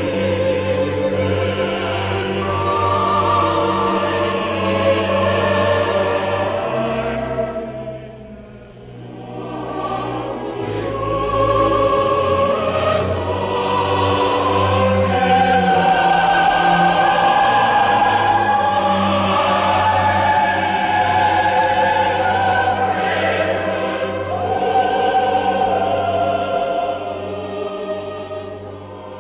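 Choir singing with a string orchestra in a slow classical choral setting. The music eases off briefly about eight seconds in, swells again, and fades near the end.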